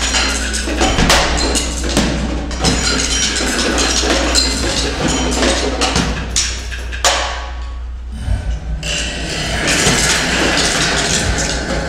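Percussion music: fast, dense clattering hits like drums and wood blocks over a steady low drone. The clatter thins out about seven seconds in and picks up again a couple of seconds later.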